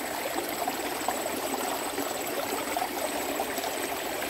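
Water running in a small ditch stream: a steady trickling hiss, with a thin steady high-pitched tone above it.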